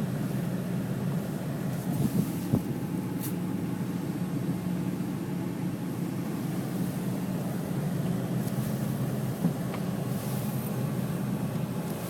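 Steady low rumble of a vehicle on the move, with a few light knocks about two seconds in.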